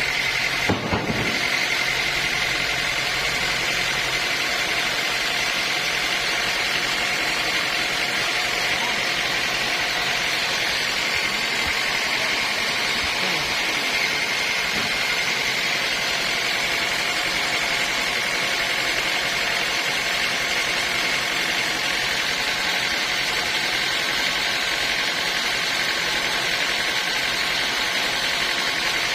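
Sawmill saw running steadily with a high whine over a constant mechanical din, with a brief knock about a second in.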